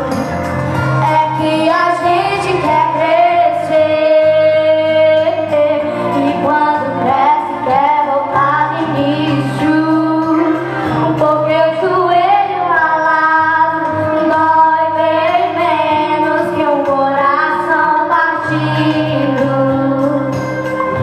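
Music: a sentimental Portuguese-language song, a woman singing a melody over steady backing notes.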